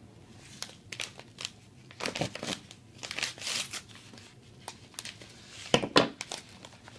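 A folding knife slicing open a paper mailer envelope, and the paper tearing and crinkling as it is pulled apart, in a series of short scraping rustles with the sharpest crackles about six seconds in.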